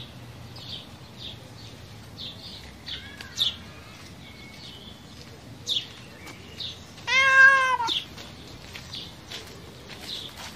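A cat meows once, a long arched call about seven seconds in, over a background of small birds chirping in short high notes.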